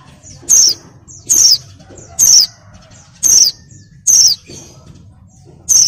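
A female white-eye (pleci) gives a loud, thin, high call that sweeps downward. It calls six times, about once a second. This is the female call used to lure male white-eyes into singing.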